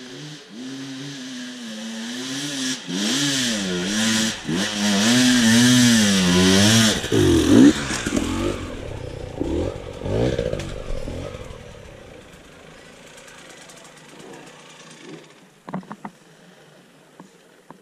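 Dirt bike engine revving, its pitch rising and falling over and over as the throttle is worked, loudest about seven seconds in, then fading away to a faint sound by about twelve seconds in. A few sharp clicks near the end.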